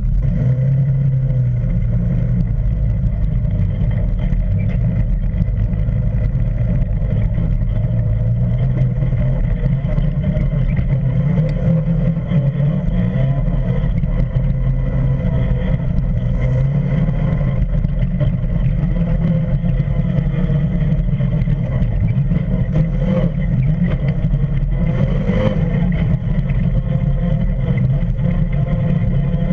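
Can-Am Commander UTV driving along a gravel track, heard close to the front wheel: a loud, steady rumble of engine and tyres on gravel.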